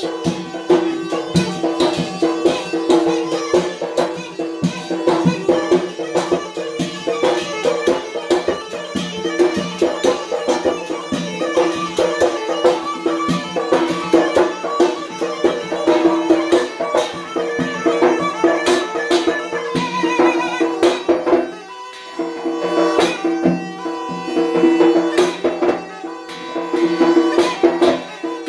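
Yemeni mizmar reed pipe playing a continuous, nasal dance melody over a fast beat of a large drum and a struck metal tray. The music drops away for a moment about three quarters of the way through, then picks up again.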